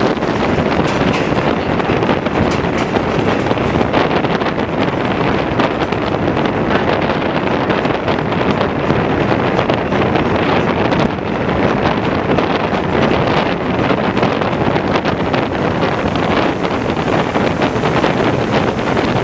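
Passenger train running through floodwater: a steady noise of water being churned up and sprayed aside along the carriage, mixed with wind buffeting the microphone.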